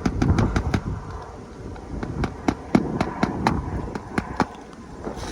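Hammer driving roofing nails into asphalt shingles: runs of sharp strikes, about four a second, in several groups.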